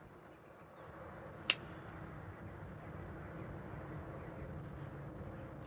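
A single sharp click about one and a half seconds in, over faint steady background noise: a torque tool set to 25 clicking as it reaches torque on a charger lug screw.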